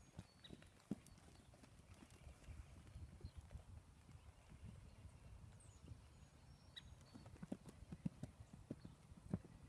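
Faint hoofbeats of a horse moving over an arena's sand footing: irregular soft, dull thuds.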